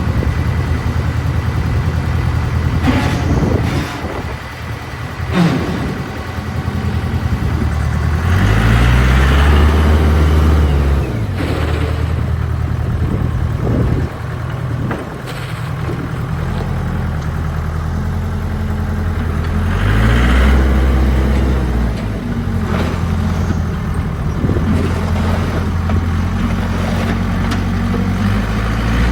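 Case 580 Super K backhoe's Cummins 4-390 four-cylinder diesel running steadily. Twice, about 8 and 20 seconds in, it rises in pitch and loudness with a hiss over it, then falls back, as the machine is worked. A few short knocks come in between.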